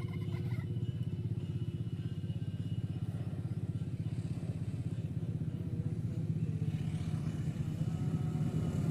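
A steady, fast-pulsing engine rumble that grows louder over the last couple of seconds.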